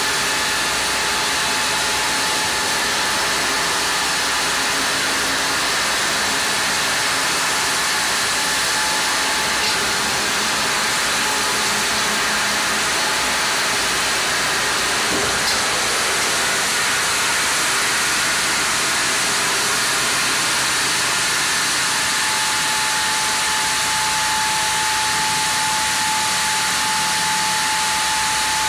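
Sawmill log carriage feeding a Japanese kalapanax (sen) log through the saw: a steady, loud mechanical hiss of the saw and machinery with a thin high whine that stands out more clearly in the last several seconds.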